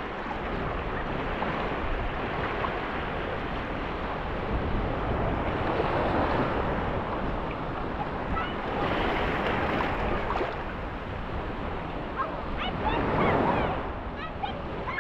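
Small sea waves lapping and washing in shallow water at a sandy shore, swelling three times, a few seconds apart.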